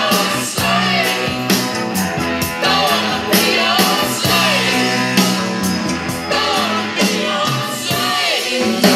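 A song with a singer and a steady drum beat, played loud through the Sanyo MX-650K boombox's speakers.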